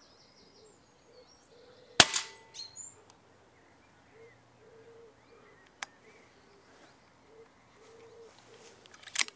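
Daystate Red Wolf pre-charged pneumatic air rifle firing a single shot, one sharp crack about two seconds in.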